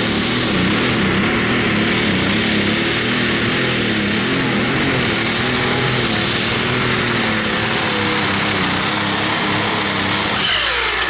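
Light-Limited Super Stock pulling tractor's engine running flat out under load as it drags the weight sled, a loud, dense engine note wavering slightly in pitch; near the end the revs fall away and the sound drops.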